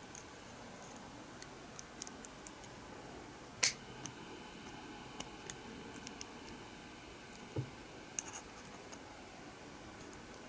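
Small hand tools working thin stainless steel for a lure's tail blade: scattered sharp snips and clicks at an irregular pace, with one loud snap about three and a half seconds in.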